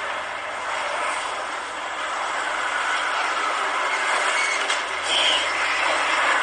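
Loud, steady roar of strong wind, a train-like rushing noise of the kind heard in tornado footage.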